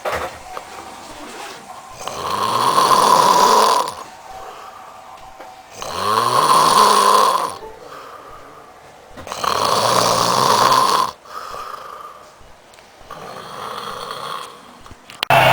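A man snoring loudly, one long rasping snore roughly every four seconds with quieter breaths between them; loud music cuts in suddenly at the very end.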